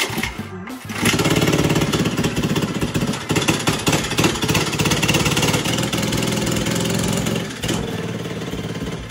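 Small go-kart engine pull-started by its recoil cord, catching about a second in and running loud and fast with a rapid firing pulse, then dropping back to a lower idle near the end.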